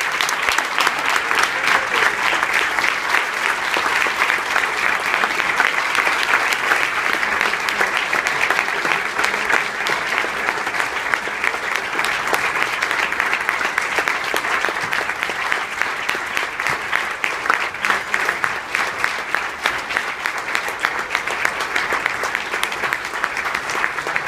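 An audience applauding: a long, steady round of dense clapping welcoming an award recipient to the podium.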